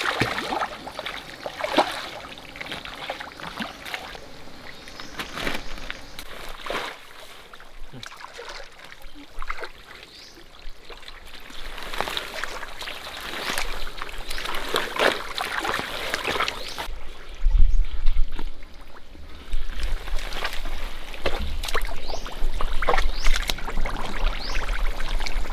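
Water trickling and splashing in irregular sloshes. About two-thirds of the way through, a low rumble joins in and the sound grows louder.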